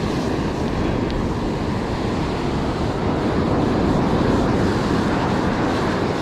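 Ocean surf washing in steadily, with wind buffeting the microphone. The wash swells to its loudest about four seconds in, then eases.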